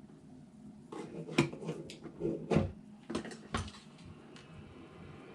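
A run of small, sharp clicks and taps, about seven spread over three seconds, from small tools and parts being handled during soldering work, then quieter for the last second or so.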